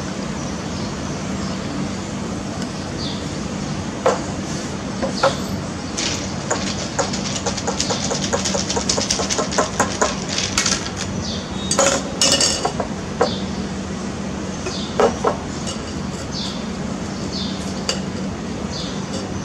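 Long bar spoon stirring ice in a tall glass, with quick clinks of metal and ice against the glass that come thickest for a few seconds in the middle.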